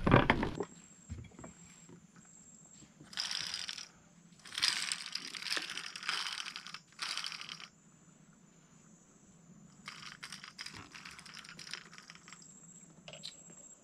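A high, steady insect buzz, with several bursts of crackling, rustling noise: one about three seconds in, a longer one from about five to seven and a half seconds, and another around ten to twelve seconds.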